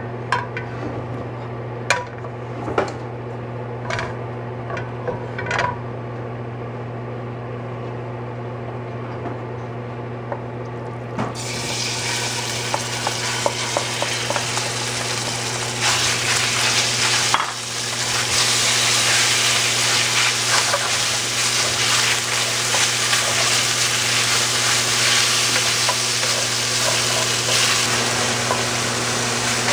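Marinated sliced chicken hitting hot oil in a sauté pan about 11 seconds in and sizzling loudly from then on, while a wooden spatula stirs and scrapes it around the pan. Before that there are only a few light knocks over a steady low hum.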